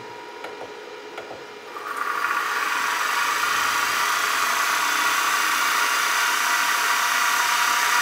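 Brushed vacuum-cleaner motor fitted with homemade ceramic-ball bearings packed with graphite grease, starting about two seconds in on 12 volts from a lab supply and spinning up within half a second to a steady whirring whine.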